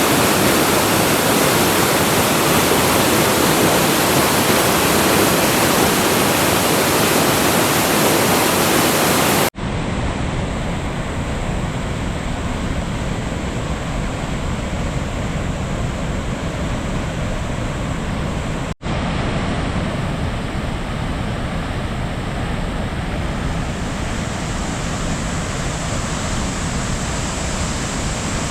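Large waterfall swollen with rainwater pouring down in a loud, steady rush. The sound cuts out for an instant twice, and after the first break the hiss is duller.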